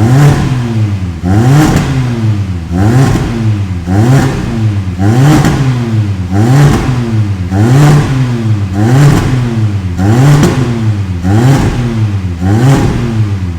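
Hyundai Tucson's 2.0-litre engine revved in quick blips through a new full stainless steel exhaust, about a dozen times at roughly one rev a second, each rising and falling back.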